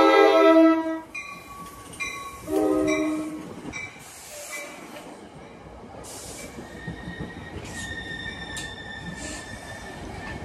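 NJ Transit push-pull commuter train, cab car leading, sounding its horn: a loud long blast that cuts off about a second in and a shorter blast around two and a half seconds. The train then runs past with a rolling wheel rumble and a steady high wheel squeal over the last few seconds.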